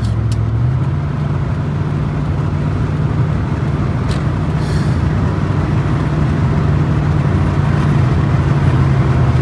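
Work truck's engine running steadily with road noise, heard from inside the cab. The engine note steps up slightly about a second in, and the sound grows a little louder toward the end.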